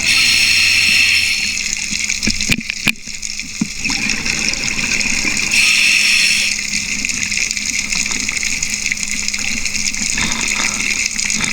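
Scuba diver's exhaled bubbles gushing and rushing underwater in two louder bursts, one at the start and one about six seconds in, over a steady watery hiss.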